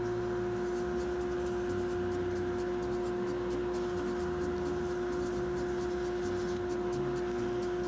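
Wood lathe and dust collector running with a steady hum while sandpaper rubs on a spinning sweetgum-pod and resin pen blank, under a fast, regular ticking.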